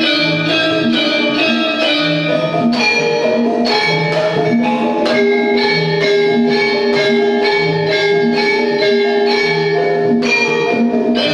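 Javanese gamelan playing in jaipong style: bronze bonang kettle gongs and metallophones ring in interlocking patterns over a steady beat on the kendang drums. A long held note sounds through the middle of the passage.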